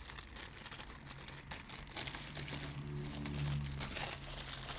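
Thin clear plastic packaging crinkling and crackling as it is handled and pulled open by hand, with many small irregular crackles. A low steady hum sounds underneath about two to four seconds in.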